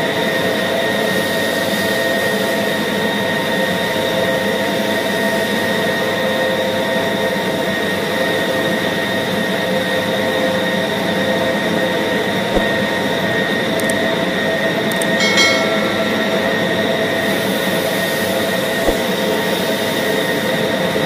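Electric meat band saw running steadily, its motor and blade giving a constant hum with a high whine, as a block of pork is cut. A brief high-pitched sound rises above it about fifteen seconds in, with a couple of faint knocks.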